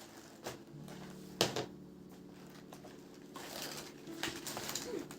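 A few sharp clicks or taps of small objects being handled, the loudest about a second and a half in, then a light rustling over the last couple of seconds, over soft background music with sustained low notes.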